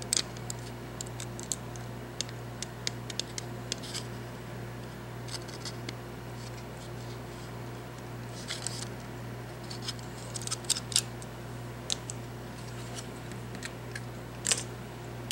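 Scattered light clicks, ticks and scratches of small screws and plastic mouse parts being handled during a teardown, a few sharper clicks among them, over a steady low hum.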